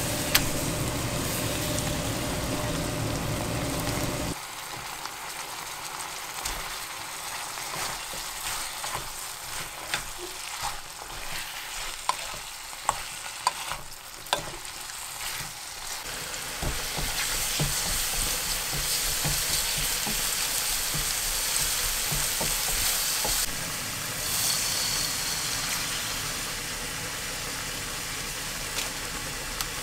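Baby octopus and onion in a spicy red sauce sizzling in a nonstick frying pan, stirred with a spatula that clicks and scrapes against the pan. The sizzle grows louder and steadier in the second half. A low steady rumble cuts off about four seconds in.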